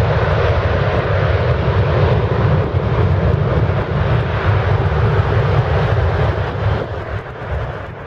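Airbus A330-300's Rolls-Royce Trent 700 turbofans at takeoff thrust during the takeoff roll: a steady loud jet roar that starts to fade near the end.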